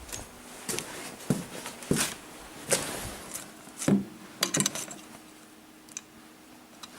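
Light knocks and clatters of small objects being handled and set down on a hard surface, a few seconds apart, with a quick run of them about four and a half seconds in.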